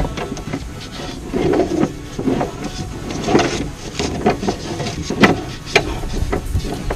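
Rear wiring loom of an MG Midget being fed and pulled through the car's bodywork by hand: irregular scraping and rustling of cable and connectors against sheet-metal panels, with several sharp knocks and clicks, two of them close together near the end.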